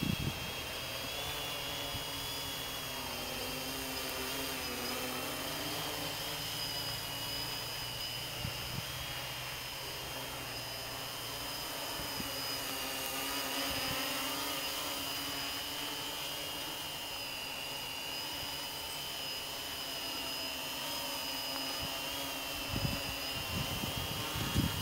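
Multirotor drone's electric motors and propellers whining steadily in flight, the high-pitched whine wavering slightly in pitch and swelling a little about halfway through.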